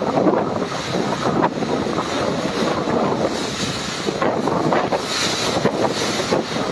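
Typhoon-force wind gusting with heavy rain, buffeting the microphone. The rushing noise swells and eases from gust to gust.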